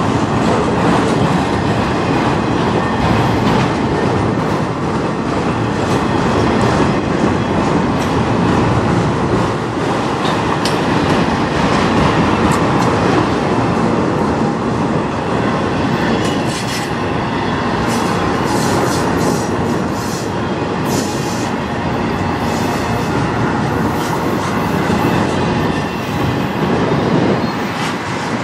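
Freight train of autorack cars rolling past: a steady rumble of steel wheels on the rails with a clickety-clack over the rail joints. Sharp high clicks and squeaks from the wheels come through for several seconds past the halfway point.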